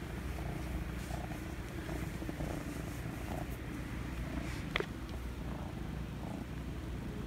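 Kitten purring steadily, a low rumble close by, with one sharp click about five seconds in.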